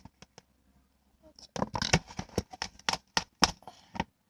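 Homemade clear-glue slime being stirred in a container just after liquid detergent activator is added: a quick, irregular run of wet, sticky clicks and slaps, starting about a second and a half in.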